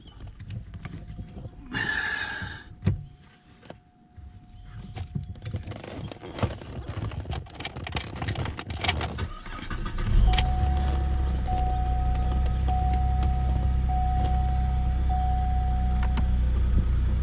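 2008 Cadillac CTS engine started about ten seconds in, then idling steadily, with a tone pulsing on and off about once a second over the idle. Before it, scattered clicks and handling noises.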